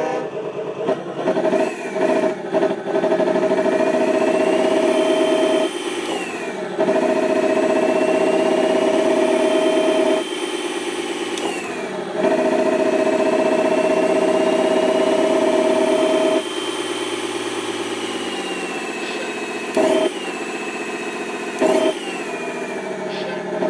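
Simulated Tatra 813 air-cooled V12 diesel engine sound from an ESP32 RC-truck sound controller, revved up and down. Long stretches at raised revs carry a whine that climbs slowly and drops sharply as the throttle closes, before the engine settles back to a lower run. Near the end come two short throttle blips.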